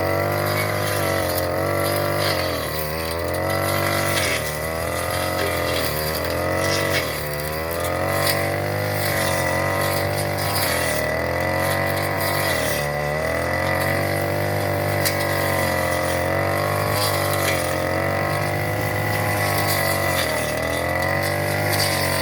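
Small petrol engine of a grass cutter running steadily, its pitch sagging briefly several times as it takes load.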